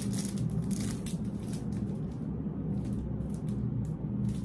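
Plastic wrapping around a pack of nail files crinkling and rustling as it is handled, in short irregular crackles with a lull a little past halfway, over a steady low hum.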